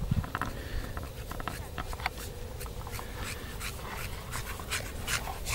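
Footsteps crunching in snow: many short, irregular crunches, with a low thump right at the start.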